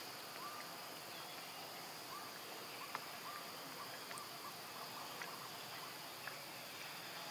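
Faint outdoor ambience: a steady high-pitched insect drone, with a run of short, quiet chirps through the first few seconds and a few faint clicks.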